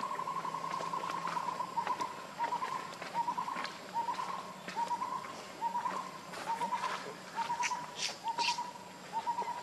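A bird calling at one steady, fairly high pitch. For about the first two seconds it is a continuous trill; then it breaks into short, slightly rising notes repeated about one and a half times a second.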